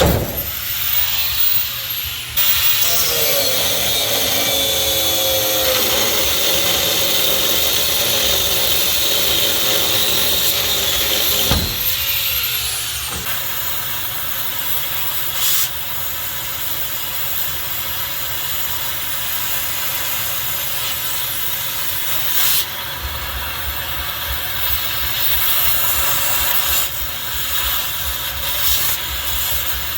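Oxy-fuel cutting torch hissing steadily while cutting off seized bolts that will not come loose. There is a sharp pop at the start and another about eleven seconds in.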